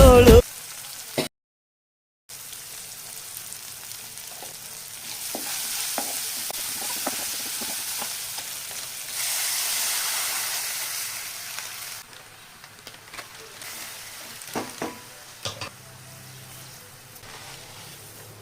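Food frying in hot oil in a pan: a steady sizzle that swells for several seconds and then dies down. It is followed by a few scattered clicks and taps of a spoon stirring against the pan.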